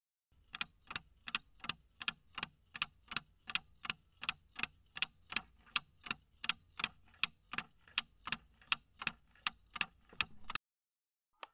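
Clock-style ticking of a countdown-timer sound effect, about three even ticks a second, stopping about a second before the end; a brief blip follows just before the end.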